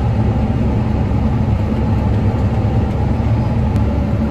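Farm tractor running steadily under load while pulling a working hay baler, a low, even engine drone.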